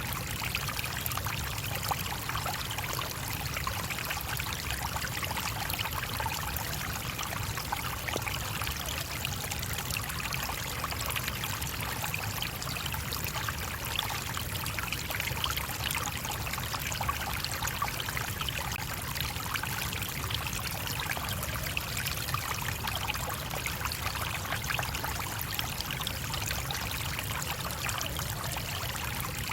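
Small stream flowing over stones, a steady, even babble of running water.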